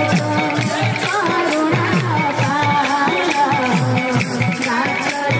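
Live budamal kirtan folk music over loudspeakers: a girl sings a wavering melody over hand-drum strokes that drop in pitch and steady rattling percussion.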